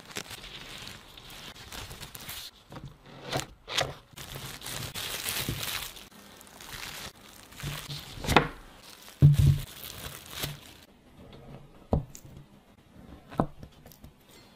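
Plastic cling film crinkling and rustling as food is rolled up in it, followed by a few short, sharp knocks.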